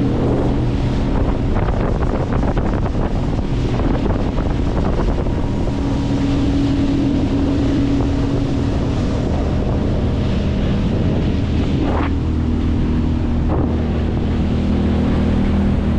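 A 25 hp Mercury four-stroke outboard running steadily with the boat under way, with wind on the microphone and water noise. Two brief sharp sounds come about twelve seconds in and again a second and a half later.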